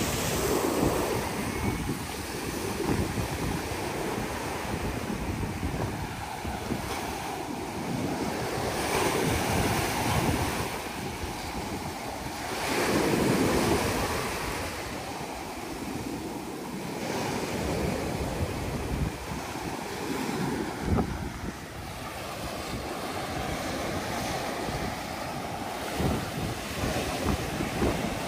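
Sea surf breaking and washing on the shore, with wind buffeting the microphone; the rush of the waves swells and eases every few seconds, loudest about thirteen seconds in.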